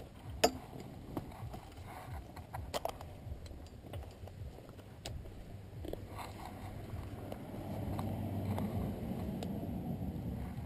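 Mini trike's small engine running low at idle, with scattered knocks and rattles from the frame as the trike rolls on rough ground. The engine grows a little louder about two-thirds of the way in.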